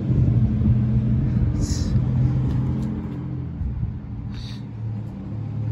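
Car engine idling steadily, a low, even hum that eases off slightly after the first couple of seconds.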